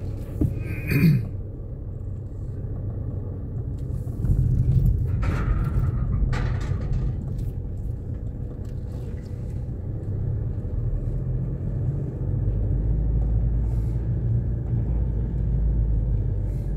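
Car interior: steady low rumble of the engine and tyres while driving slowly, growing louder a few seconds in and again near the end, with a few brief knocks about five to seven seconds in.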